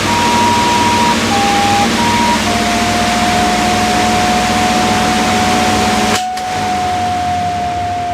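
A recorder plays a few short notes, then holds one long, steady note over a loud, rushing, humming drone. The drone cuts off suddenly about six seconds in, leaving the held note over a quieter hiss.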